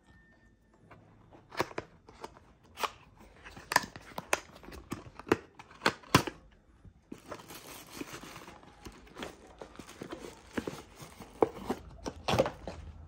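Cardboard packaging handled and opened by hand: a string of sharp snaps and scrapes as the box flaps are worked open, then from about seven seconds in a steady rustle of the protective wrap as the camera is pulled out, with a louder snap near the end.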